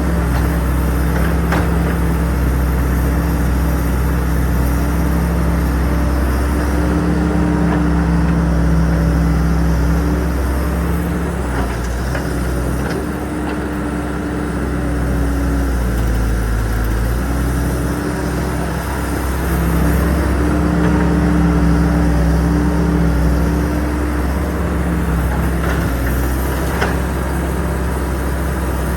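Excavator's diesel engine running steadily, its note rising a little twice, about a quarter of the way in and again about two-thirds of the way in, with a few faint clicks.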